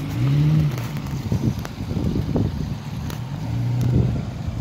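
Jeep Cherokee's engine running at low revs as it crawls off-road, the pitch shifting a little with the throttle. Wind buffets the microphone, with a few light knocks.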